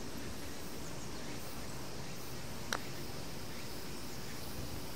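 A single click of a putter striking a golf ball, a little over halfway through, over a steady outdoor background hush.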